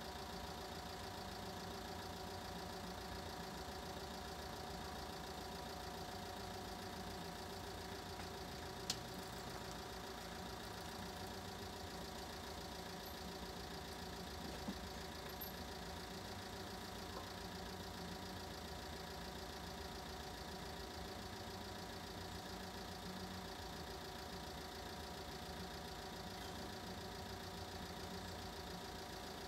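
Steady hum of an engine idling, with a sharp click about nine seconds in and a fainter one a few seconds later.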